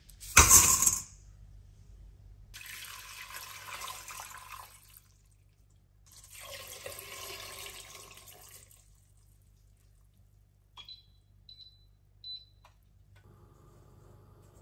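Water poured into an empty stainless-steel pot in two pours of a couple of seconds each, after one loud knock about half a second in. A few light ticks follow, and a faint steady hum starts near the end.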